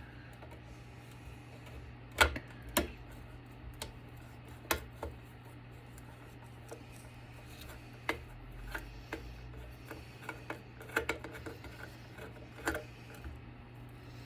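Irregular clicks and light knocks of a Phillips screwdriver and loosened screws on a battery backup's metal chassis as the power-board screws are taken out, with a steady low hum underneath.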